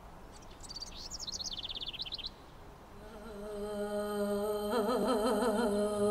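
A bird gives a rapid trill of notes falling in pitch, lasting under two seconds. About three seconds in, music fades in: a held low drone with a wavering melody above it, growing louder toward the end.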